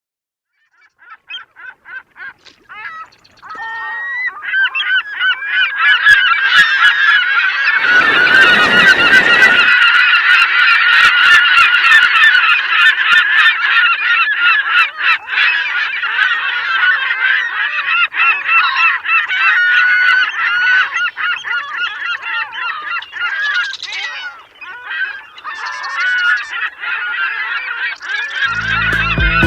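A large flock of birds calling, many honking calls overlapping into a dense chorus that builds up over the first few seconds. A brief rushing noise comes about eight seconds in.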